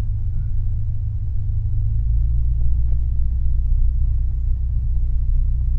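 Cessna 172M's four-cylinder Lycoming O-320 engine and propeller running at low taxi power, a steady low rumble heard inside the cockpit. It deepens and grows a little louder about two seconds in.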